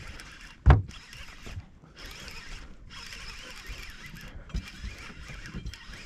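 Baitcasting reel cranked steadily while retrieving a spoon, a continuous mechanical hiss with a few brief breaks. A single knock comes a little under a second in.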